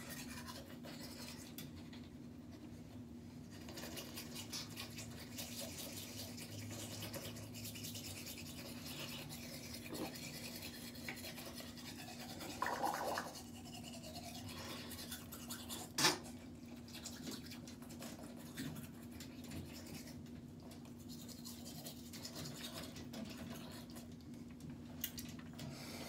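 Toothbrush scrubbing teeth: continuous scratchy brushing over a steady low hum. A short louder sound comes a little before halfway, and a sharp click a little after.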